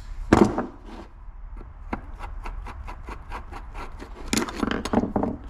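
Metal hand tools on a workbench: a sharp clack as locking pliers are set down, then a run of small clicks and scrapes as a screwdriver works a screw in a two-stroke reed valve cage, with a denser flurry of clicks near the end.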